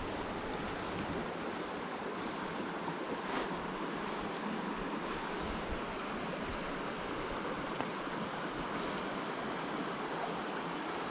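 Steady rush of running creek water.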